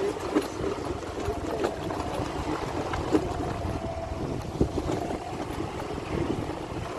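A vehicle's engine running as it drives along a road, a steady rumble with occasional knocks and wind on the microphone.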